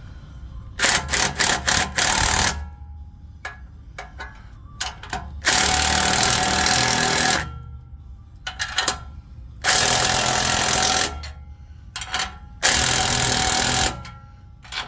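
Power impact wrench hammering in bursts as it runs the nuts down on exhaust clamps, with a few short blips and then four longer runs of about one and a half to two seconds each.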